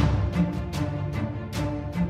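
Music track with a fast, steady drum beat over sustained notes.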